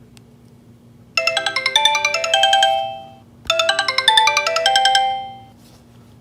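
Sony Ericsson W595 mobile phone playing a short chiming ringtone melody through its speaker, the same two-second phrase sounding twice.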